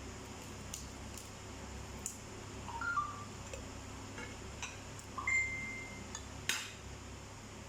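Dishes and cutlery clinking during a meal: scattered sharp clicks and clinks over a low steady hum, the loudest click about six and a half seconds in.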